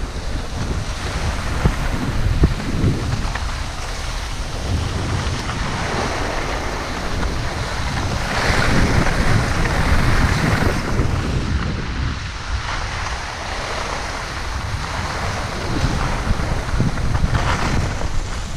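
Wind buffeting the microphone of a camera carried by a downhill skier, a continuous rumbling rush. A hiss of skis sliding on packed snow swells up about halfway through.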